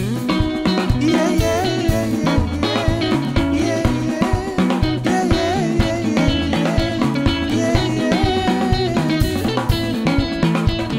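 Live soukous band music: electric guitar melody lines over a drum kit beat.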